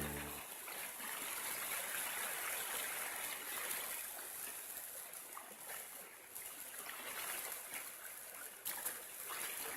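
Creek water flowing steadily over rocks, a continuous even rush of running water.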